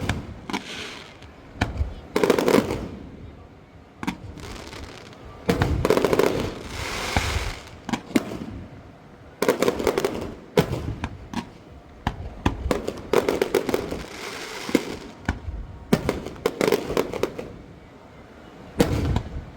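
Aerial fireworks bursting overhead: a string of sharp booms every second or two, several followed by longer crackling sparkle.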